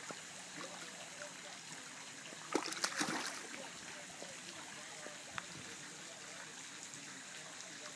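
Dog's paws slapping and splashing in pool water, a quick cluster of splashes about two and a half seconds in, over a steady trickle of moving water.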